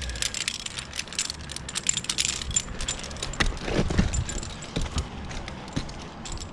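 Metal climbing hardware such as carabiners and clips jingling and clinking as a tree climber moves and repositions on the trunk, with a few dull knocks about three and a half to four seconds in.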